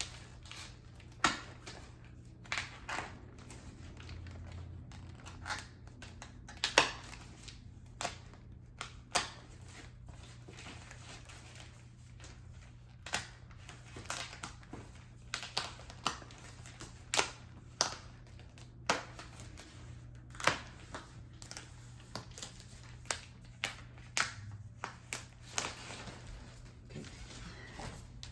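Plastic wrapping around a compressed mattress being slit with a guarded safety cutter and pulled apart: irregular crinkles and sharp crackles of plastic, the loudest snap about seven seconds in.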